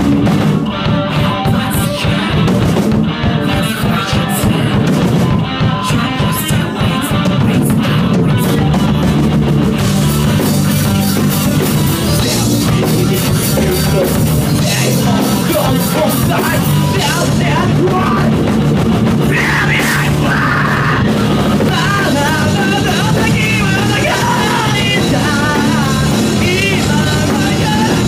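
Rock band playing live and loud: electric guitar, electric bass and drum kit, with a male singer at the microphone.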